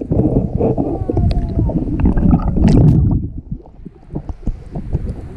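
Underwater sound picked up by a GoPro submerged in a swimming pool: a loud, muffled low rumble of water moving against the camera for about three seconds, then quieter, with scattered small clicks.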